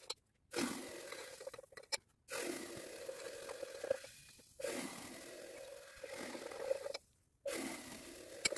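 Glass stirring rod scraping through wet potassium chloride crystals in a glass beaker, a gritty scraping with a few sharp clinks of the rod against the glass. It comes in short stretches that start and stop abruptly.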